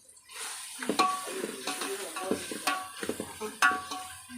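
A metal ladle stirring in a cooking pot and knocking against its side four or five times, each knock ringing briefly, over a steady sizzling hiss of frying.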